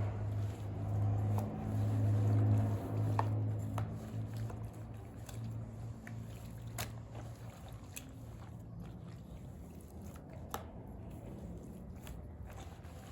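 A steady low mechanical hum, strongest for the first few seconds and then fading, with scattered small clicks and wet, squishy handling sounds.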